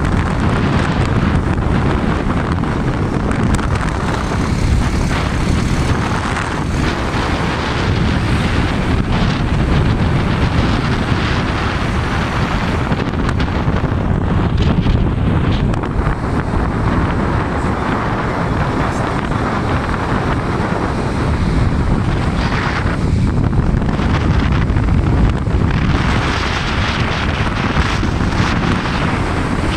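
Wind buffeting the microphone of a moving motorcycle, a steady loud rush with the bike's engine and road noise blended in underneath.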